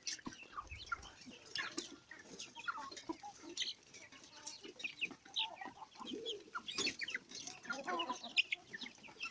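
A flock of improved village chickens clucking, with many short, overlapping calls coming irregularly.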